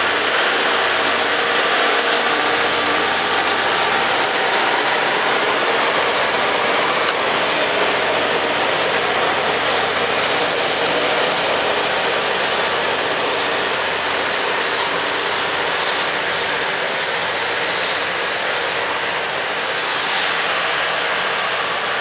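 Loram RG314 rail grinder train passing close by, its grinding cars working the rail: a loud, steady roar that eases a little near the end as the train moves off.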